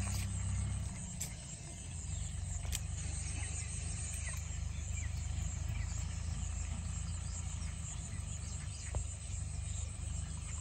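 Outdoor ambience at a pond: a steady low rumble with faint, scattered high chirps of small wild animals and a couple of light clicks.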